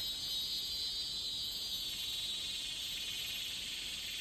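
Insects buzzing steadily at a high pitch, a little louder in the first two seconds.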